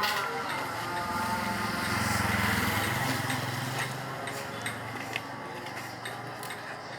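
A vehicle engine running, building about a second in and fading after about four seconds, with scattered clicks and knocks.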